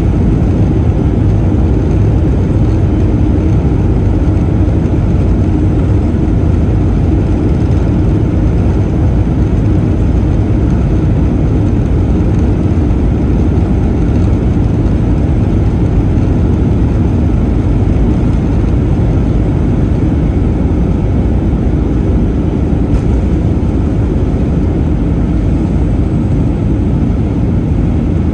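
Steady jet engine and cabin noise inside a Boeing 737-400, heard from a seat beside the wing's CFM56 turbofan as the airliner lines up and begins its takeoff roll.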